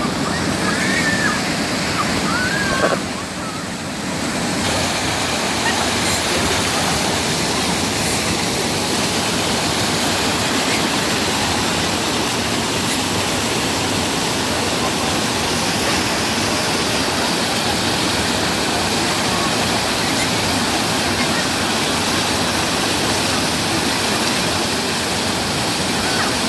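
Stream water rushing steadily over a small weir in a mountain stream. A couple of short voice calls in the first few seconds, and the rush briefly drops off a few seconds in.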